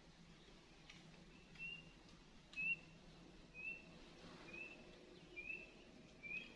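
A bird calling faintly: a short, rising, whistle-like note repeated about once a second, starting a little under two seconds in.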